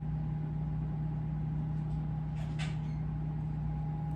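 Steady low mechanical hum with a faint constant higher tone above it, broken by a brief soft rustle or hiss about two and a half seconds in.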